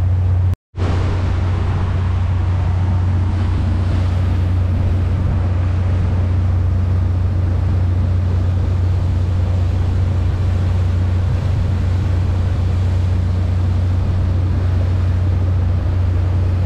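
Steady drone of a 1997 Albin 34 motor cruiser's engine running under way, with a strong low hum and a haze of water and wind noise over it. The sound cuts out for an instant about half a second in.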